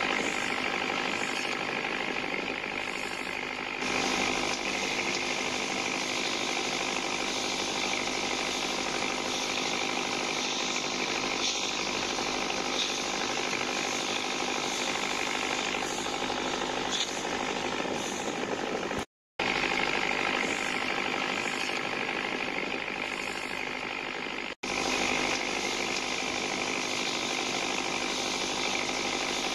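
Toy pop-pop boat (otok otok) running: its candle-heated boiler makes a rapid, steady putt-putt rattle. The sound breaks off briefly twice, about two-thirds and four-fifths of the way through, and carries on unchanged each time.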